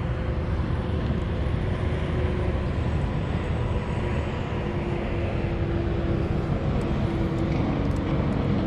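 Steady wind rumble buffeting the microphone, with no distinct event standing out.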